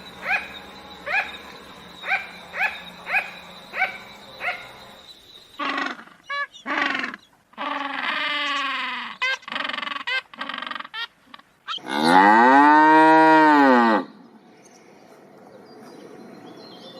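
A string of animal calls: about eight short rising calls, roughly two a second, for the first five seconds, then assorted shorter calls. About twelve seconds in comes a loud, two-second cow moo that rises and falls in pitch.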